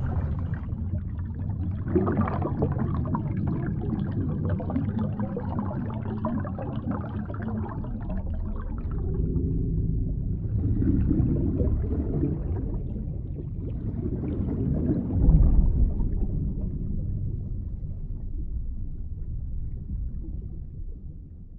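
Muffled water noise heard through an underwater camera: a low, dull wash and gurgle that swells and fades, with a low thump about fifteen seconds in.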